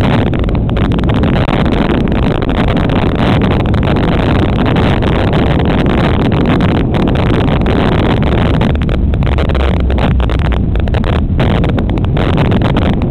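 Wind buffeting the microphone of a helmet-mounted HERO camera on a moving bicycle, a loud, steady static-like rush.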